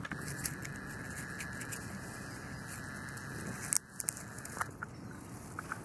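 Crackling, rustling handling noise of fur and grass brushing against a camera's microphone held against a cat, with many small crackles and a sharp click a little under four seconds in.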